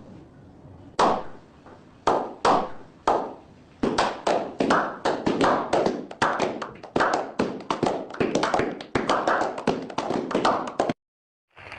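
A series of sharp taps and knocks from hands handling the package: a few spaced about a second apart, then a rapid, dense run from about four seconds in that cuts off abruptly near the end.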